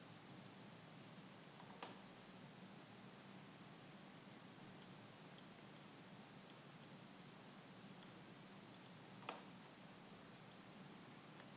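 Near silence with faint steady hiss, broken by two sharp clicks, about two seconds in and about nine seconds in, and a few fainter ticks: computer keyboard and mouse clicks.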